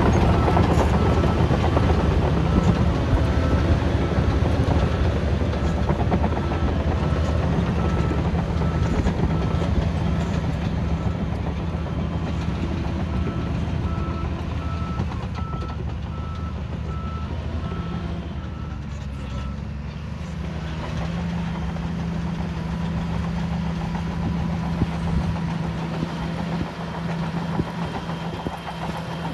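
Shantui DH17C3 bulldozer's diesel engine running, with a reversing alarm beeping steadily for about the first two-thirds before it stops. The engine sound then dips and picks up again, and runs on steady.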